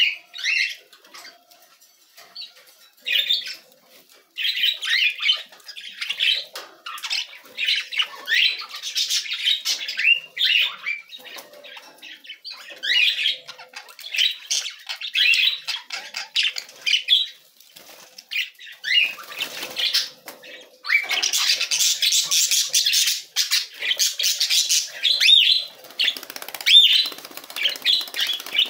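Budgerigars chattering: bursts of rapid high warbles, chirps and short rising whistles with brief pauses, busiest in a long run about three quarters of the way through.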